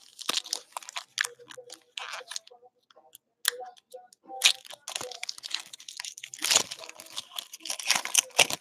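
Plastic trading-card pack wrappers torn open and crumpled by hand: a run of irregular crinkling, crackling tears and rustles, loudest in three bursts across the middle and end.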